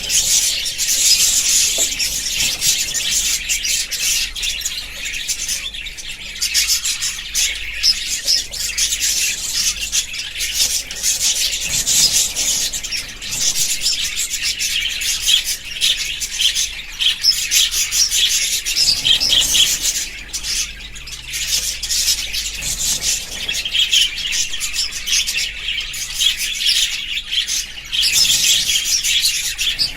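A flock of budgerigars chattering and chirping without a break, many quick overlapping warbles and tweets with the odd louder squawk.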